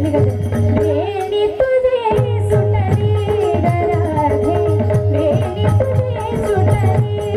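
Women singing a Marathi devotional gaulan (bhajan) in a wavering, ornamented line, over a held harmonium note and rattling percussion keeping the beat.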